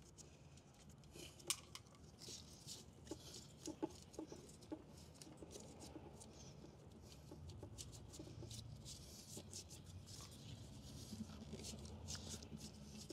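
Faint scattered clicks, taps and light scraping of hands working on the motorcycle's coolant hoses and fittings, over a faint low hum.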